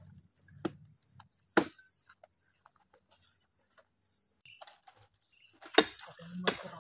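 Four sharp knocks as heavy oil palm fruit bunches are heaved into a rattan basket, the loudest near the end. A steady high insect drone runs behind them and stops a little past halfway.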